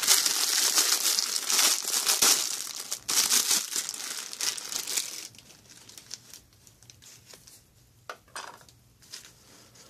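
A clear plastic MRE packet bag crinkling loudly as it is pulled and torn open by hand. After about five seconds it drops to a few faint rustles as the contents are set down.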